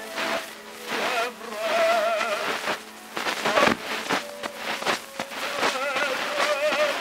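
Early acoustic recording played from a 1911 Edison Amberol wax cylinder: a tenor singing in French with vibrato over a small orchestra, the voice coming in about a second in. Constant surface hiss and crackle of the cylinder run under the music.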